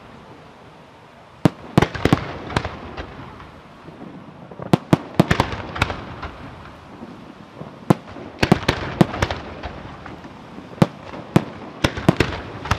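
Aerial fireworks display by Scarsella Fireworks: shells bursting overhead with sharp bangs and cracks, coming in irregular clusters over a steady rumble, after a quieter first second or so.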